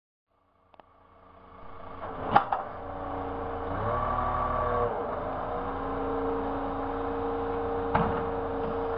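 Hook-lift truck's diesel engine and hydraulics running steadily as the hook arm lifts and tips a steel skip container. The sound fades in over the first two seconds and its pitch briefly rises and falls about four seconds in. Sharp metal clanks come about two seconds in and again near the end.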